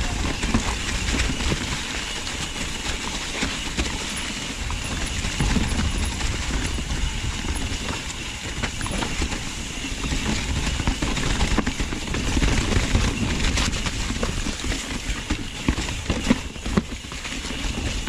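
Trek Remedy mountain bike riding down a wet trail: a steady rush of tyre and rolling noise with frequent clattering knocks as the bike rattles over rocks and roots.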